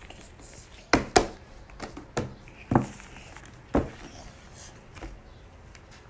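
Hands kneading and pressing foam slime made of glue and shaving cream on a tabletop: a handful of sharp wet slaps and squelches, the loudest a quick pair about a second in.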